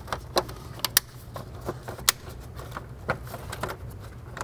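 Irregular sharp plastic clicks and taps as a plastic cowl panel is pressed against its rubber seal and clipped into place, over a low steady background hum.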